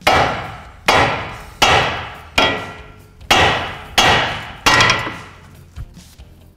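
Hammer striking a car's steering knuckle seven times, about one blow every three-quarters of a second, each hit ringing briefly. The blows are shocking the outer tie rod end's tapered stud loose from the knuckle.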